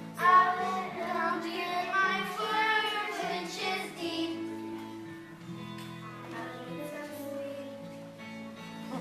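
Children singing a song with instrumental accompaniment; the voices stop about four seconds in and the accompaniment carries on alone with held notes.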